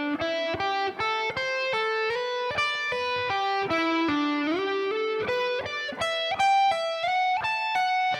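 Electric guitar playing a slow single-note lick, picked at an even pace of about three to four notes a second. It mixes minor pentatonic runs with minor-7th arpeggios and slides up to higher positions, so the line climbs in pitch overall.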